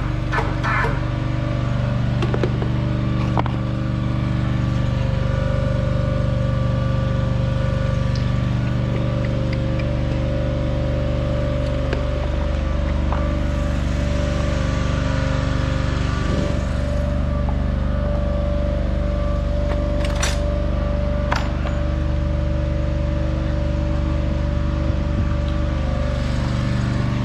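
An engine running steadily at an even pitch, with a shift in its tone about two-thirds of the way through. There are two sharp metal knocks a second or so apart, about twenty seconds in.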